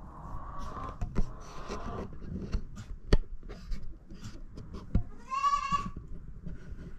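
Goat doe in labor calling out: a held call through the first two seconds and a louder, wavering bleat about five seconds in, with a few sharp knocks and rustles between.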